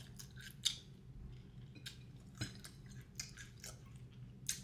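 A person chewing food up close, faint, with scattered short wet mouth clicks.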